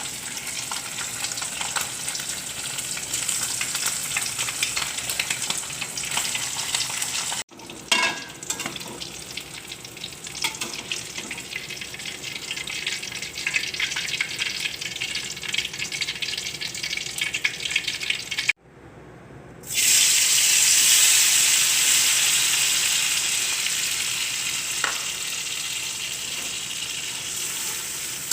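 Beef for dendeng sapi sizzling as it fries in hot oil in a pan, with stirring. It is cut off abruptly twice. After the second break a louder sizzle starts and slowly dies down.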